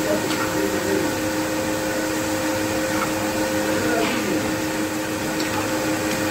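Chicken pieces deep-frying in a karahi of hot oil: a steady sizzling hiss of the bubbling oil, with a steady hum underneath and a few light clicks from the metal ladle against the pan.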